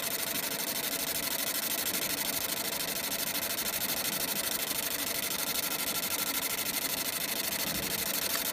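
Fiber laser marking machine engraving a copper PCB board: a steady high hiss with a fast, even pulsing as the beam scans line by line.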